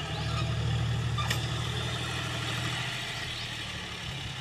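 John Deere tractor's diesel engine running steadily as the tractor works loose soil with its rear blade. The engine note gets a little quieter after about two and a half seconds.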